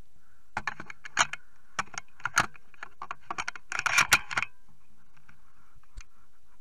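An irregular run of sharp clicks and rattles, densest around 4 seconds in, from the shotgun and its barrel-mounted camera being handled and swung, with one last click near the end.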